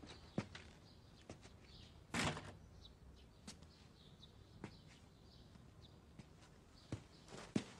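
Sparse knocks and creaks in a quiet house, with a brief scrape about two seconds in. Footsteps on the floor near the end as someone walks into the room, and faint bird chirps behind.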